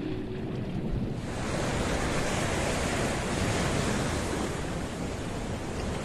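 Small sea waves breaking and washing up on a sandy beach: a steady rush of surf that swells in about a second in, after a dull low rumble.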